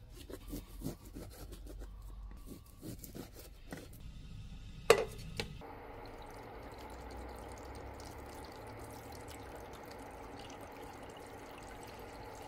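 Kitchen handling sounds: scattered light clicks and taps, then one sharp clink with a brief ring about five seconds in, followed by a steady rushing noise.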